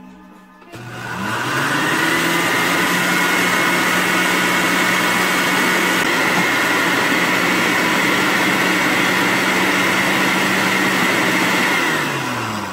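Electric countertop blender starting about a second in, its motor whine rising to full speed. It runs steadily, grinding chopped onion, garlic, ginger, lemongrass and chili into a curry paste, then winds down near the end.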